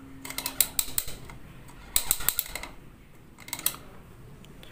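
Three short bursts of quick, sharp clicking, about a second and a half apart, from a Huina 1720 diecast crawler crane model being worked by hand.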